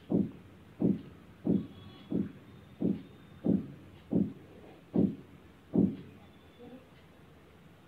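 Wooden spatula stirring garlic, cumin and mustard seeds in oil in a non-stick kadhai, giving a steady run of soft knocks against the pan, about one every 0.7 seconds. The knocks stop about six seconds in.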